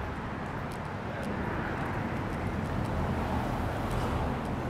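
Street ambience: a steady rumble of vehicle traffic, swelling slightly in the middle.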